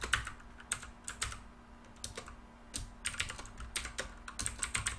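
Typing on a computer keyboard: irregular runs of keystrokes with short pauses between them, and a dense flurry of keys about three seconds in.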